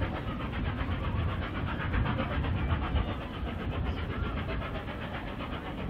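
Three-cylinder steam locomotive 60163 Tornado working hard up a 1 in 60 gradient, its exhaust a rapid, evenly spaced run of beats over a low rumble.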